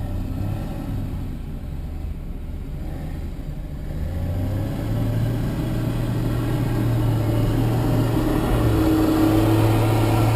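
Vehicle engine and road noise from a car driving a rough dirt road, the engine pulling harder and louder from about four seconds in.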